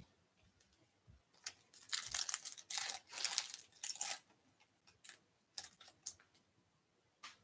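Foil wrapper of a Topps Holiday baseball card pack being torn open by hand, with tearing and crinkling from about a second and a half in to about four seconds. A few short crackles follow near the end.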